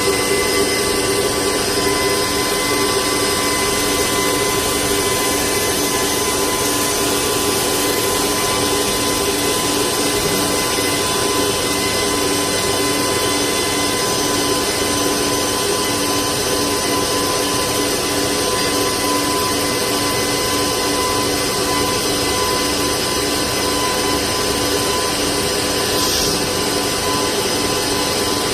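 CNC machine with a vibrating knife head cutting EVA foam: steady, loud machine running with a constant hum and whine.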